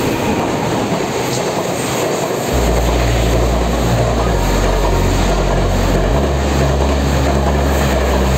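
A train passing close by: a loud, steady rushing rumble of wheels on rails, with a deep low drone joining about two and a half seconds in.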